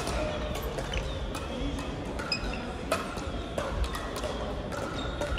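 Crossminton play in a sports hall: sharp racket hits on the speeder at irregular intervals, mixed with short squeaks of shoes on the court floor.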